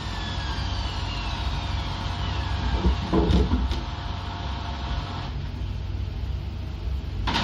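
Washing machine drum spinning down at the end of its spin cycle: a motor whine falling steadily in pitch over the first two seconds over a low hum, a few knocks about three seconds in, and a sharp click near the end.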